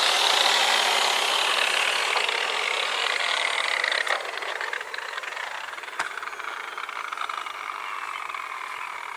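Angle grinder on stone, its high whine falling slowly in pitch and fading. A single sharp click about six seconds in.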